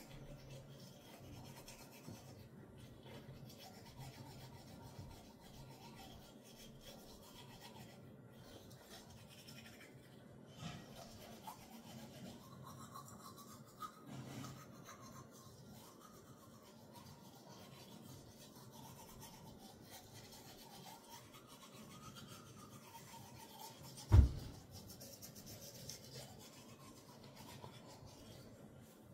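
Faint scrubbing of a manual toothbrush on teeth as someone brushes. A single sharp knock about 24 seconds in.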